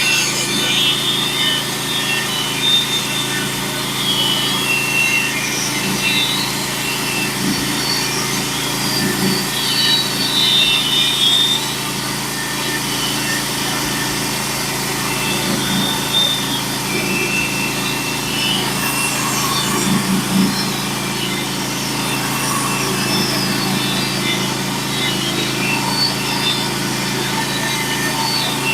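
Norwood HD36v2 bandsaw mill running steadily, its band blade cutting a pass along a pitch pine log to take off a flitch. A constant engine drone sits under a wavering high whine from the blade in the wood.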